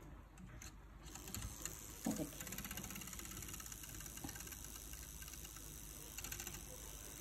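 Handheld battery-powered milk frother whirring steadily as its wire whisk spins in a mug of hot chocolate, starting about a second in; a light knock sounds about two seconds in.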